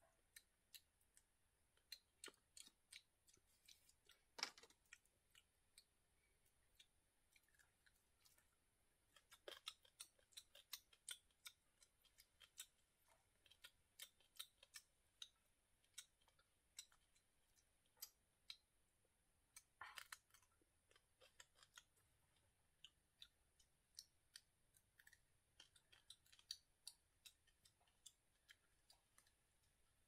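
Faint, irregular small clicks and crunches of food being eaten by hand, over a steady faint high hiss.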